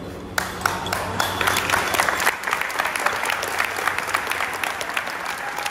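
A group of people applauding. The clapping starts abruptly about half a second in and keeps going.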